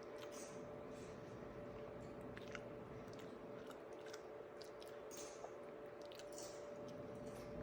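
A person chewing a bite of a macaroni and cheese hot dog: faint, soft wet mouth clicks and smacks, over a steady low hum.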